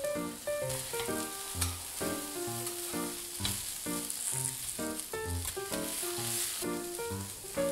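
Bean sprouts, cabbage, carrot and pork sizzling on a hot teppan griddle as two metal spatulas toss them, with a few sharp spatula clicks. The sizzle is loudest in the middle. Background music with short repeated notes plays over it.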